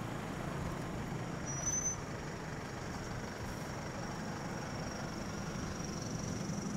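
Vehicle engines idling with a steady low rumble, and a faint, thin high whine over it.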